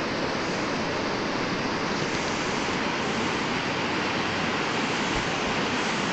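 River water rushing over rocks in shallow rapids: a steady, even rush.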